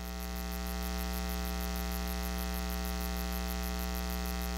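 Steady electrical mains hum, a buzz with many overtones, picked up in the audio chain.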